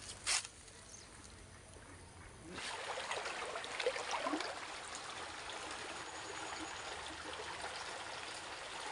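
Stream water splashing and trickling close by as a hand and a stick are moved in it, starting about two and a half seconds in. A brief knock just after the start.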